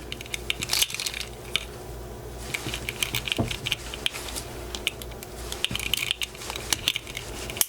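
Small metal screwdriver prying and scraping at the sealed seam of a plastic key-fob authenticator case, giving a run of quick light clicks and scratches as the tip slips along the plastic.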